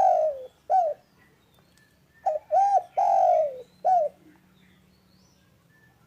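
Spotted dove (derkuku) cooing: the tail of one phrase, then about two seconds later a full phrase of four coos, the third one long and falling in pitch.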